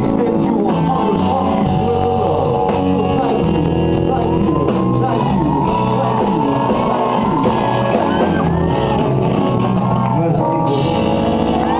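Live rock band playing with loud singing and guitar, recorded from the audience through a small camera microphone.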